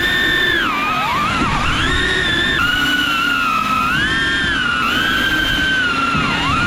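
FPV racing drone's brushless motors and propellers whining, the pitch rising and falling constantly as the throttle changes, with a few sharp dips and a sudden drop about two and a half seconds in.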